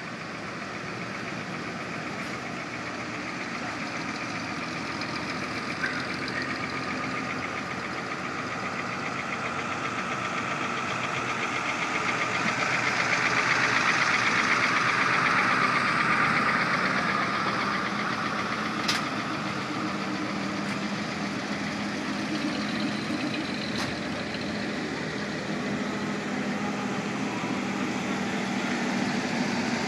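Vintage Dodge Power Wagon trucks driving slowly past one after another, engines running at low speed. The sound swells to its loudest as one truck passes close about halfway through, and rises again as another approaches near the end.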